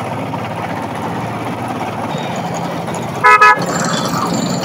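Royal Enfield motorcycle riding in slow city traffic: steady engine and road noise, with a loud, short vehicle horn blast about three seconds in.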